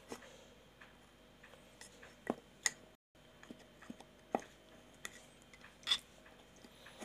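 A spoon stirring a thick mixture of grated ginger and palm sugar in a glass, clinking and scraping against the glass now and then, with a few sharper clinks about two and a half, four and six seconds in.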